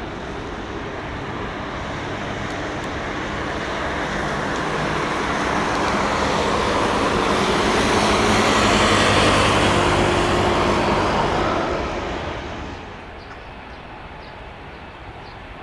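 Airbus A220-300's Pratt & Whitney PW1500G geared turbofans running at taxi power as the airliner rolls past, the jet noise swelling to a peak about eight to eleven seconds in. It falls off quickly soon after, leaving a steady lower rumble.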